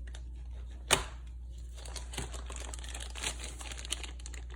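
Packaging crinkling and rustling as parts of a toy track set are taken out of their box, with one sharp click about a second in.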